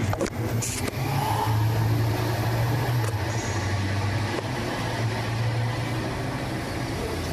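Metal lathe running with a steady low hum, a few sharp knocks in the first second.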